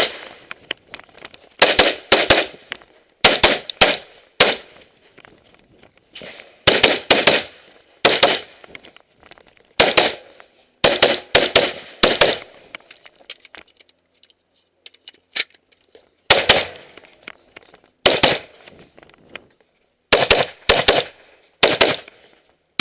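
NGA X7 AR-15 semi-automatic rifle firing during a timed stage: rapid doubles and short strings of shots separated by pauses of a second or two, with a longer lull in the middle.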